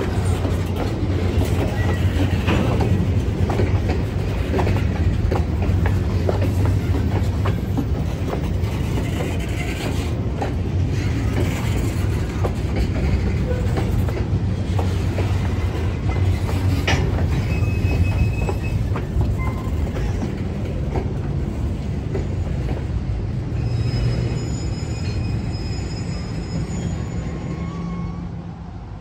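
Freight train rolling past with a steady low locomotive rumble, wheels clicking over rail joints and brief high wheel squeals; the sound fades near the end.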